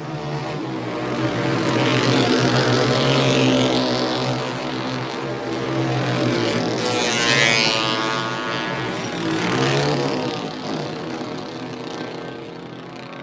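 Motorcycle engine running, its pitch swinging up and down several times, loudest a couple of seconds in and again about halfway through, then fading away near the end.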